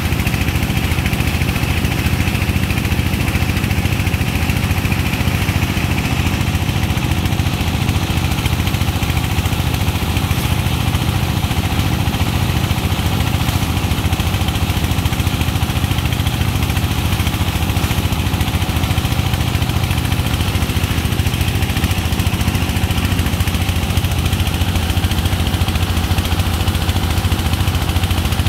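An engine running steadily with a fast, even low rumble, over the rushing hiss of water jetting from hoses onto sand.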